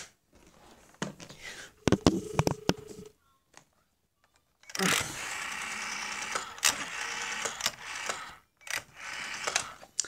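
A 1976 PMG 802 rotary telephone being handled after a misdial: sharp clicks from the handset and cradle switch, a short dial tone about two seconds in, then a few seconds of mechanical whirring as the rotary dial is turned and runs back, with more clicks near the end.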